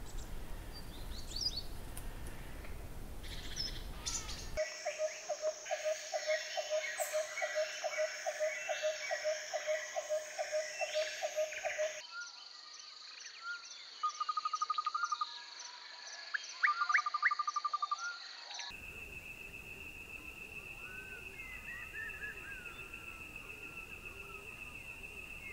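Wild birds chirping and calling over the steady high drone of insects, the ambience changing abruptly a few times. In the middle stretch one call repeats about three times a second, and near the end a steady high insect whine runs under scattered bird chirps.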